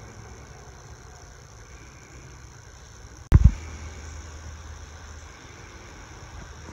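A steady low hum, with one short, loud thump about three seconds in.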